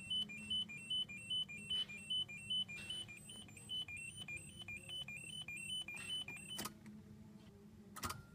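Peugeot 406 dashboard warning chime: a rapid high-low two-tone beeping that repeats and fades away over several seconds. Two sharp clicks follow near the end, over a faint steady hum.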